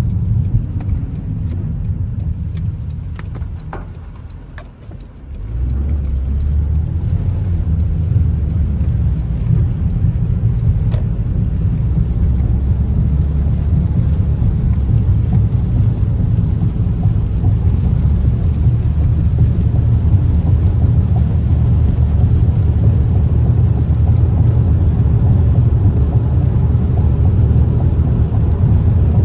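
Car on the move: a steady low rumble of engine and road noise. It fades to a brief lull about four to five seconds in, then comes back and holds steady.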